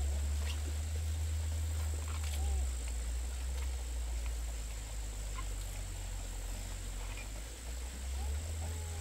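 A few short, arching animal calls over a steady low rumble and a thin, steady high tone.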